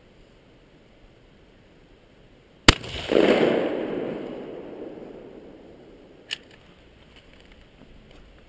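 A single shot from a 12-gauge Remington 870 pump-action shotgun, followed by a long rolling echo that dies away over about three seconds, then one sharp click.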